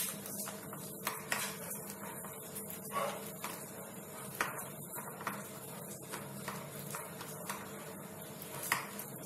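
Boiled potatoes being mashed by hand in a stainless steel plate: soft squishing with irregular light taps and clicks of fingers against the metal. A steady low hum runs underneath.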